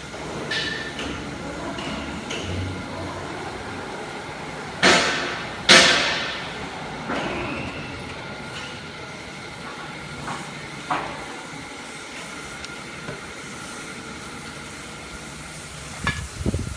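Door-lock mortise drilling machine running with a steady hum, with two loud cutting bursts about five and six seconds in and a few lighter knocks afterwards.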